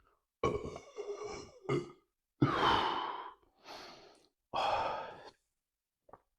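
A man's voice letting out five breathy vocal sounds in a row, each lasting from a fraction of a second to about a second. The third starts abruptly and is the loudest.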